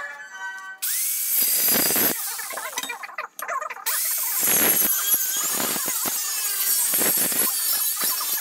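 Angle grinder with a thin cut-off disc cutting through rectangular steel tube, starting abruptly about a second in. It breaks off briefly a little after three seconds and then cuts steadily to the end.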